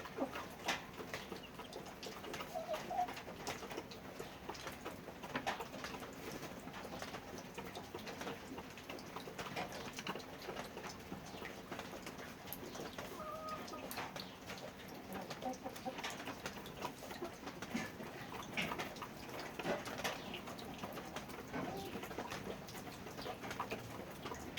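Farmyard sound: scattered light clicks, taps and knocks, with a few short bird calls from poultry or pigeons now and then.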